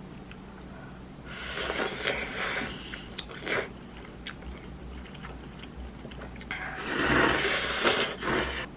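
A person slurping jjajang ramyeon noodles in two long slurps, the second one louder, with a few light clicks between them.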